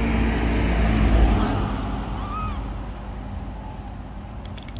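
A passing motor vehicle's engine rumble, loudest about a second in and then fading away. About two and a half seconds in comes a short, high, arching call.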